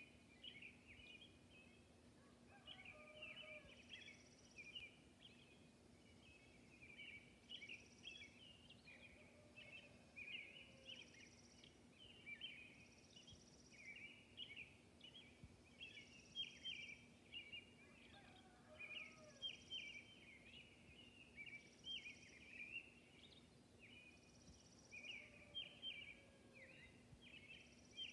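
Robins singing a steady dawn chorus of short warbled phrases, with a rooster crowing faintly four times, a few seconds apart.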